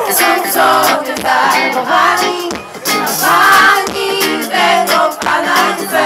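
Live concert music from a band on stage with singing, heard loud from within the audience.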